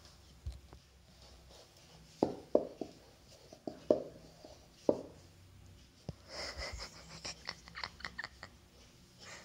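A puppy playing with a rope toy on a wooden floor: several sharp knocks and thumps, then a quicker run of light clicks and scratching near the end.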